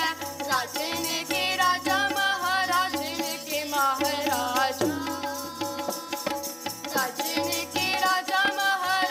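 Sikh keertan: voices singing a shabad to harmonium and tabla. The harmonium holds steady reed tones under the melody, and the tabla plays a running pattern with low bass strokes from the bayan.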